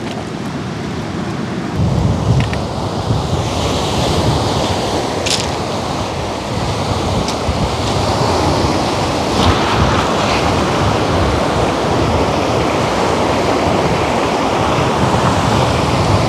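Wind and waves rushing steadily, with wind buffeting the microphone; the low buffeting grows stronger about two seconds in.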